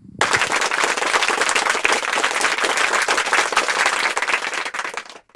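Crowd applauding: dense clapping that starts suddenly and cuts off sharply after about five seconds.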